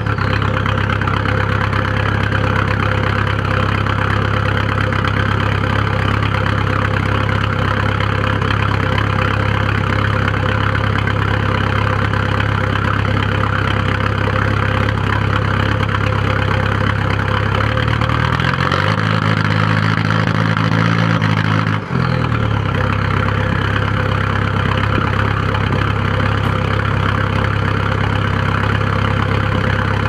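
1997 Volkswagen Passat 1.9 TDI four-cylinder turbodiesel idling roughly, heard at the tailpipe. About 18 seconds in the engine speed rises, holds for a few seconds, then drops sharply back to idle. The rough idle came on suddenly after the engine had been running smoothly, and its cause is unknown to the owner.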